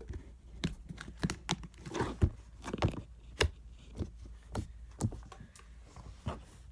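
Sticky plain green slime squeezed and pulled in the hands, giving a run of irregular sticky clicks and pops, several a second.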